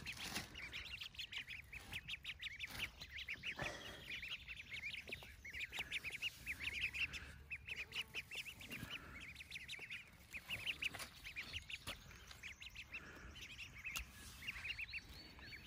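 Young wild ducklings, about four weeks old, peeping continually in quick runs of short, high chirps, with a few soft scrapes of a hand spade in soil.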